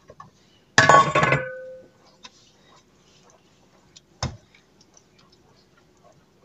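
A metallic clank about a second in that rings briefly, then a wooden spoon stirring thickened rice pudding in a stainless steel pot: faint scrapes and ticks, with one sharp knock a little after four seconds.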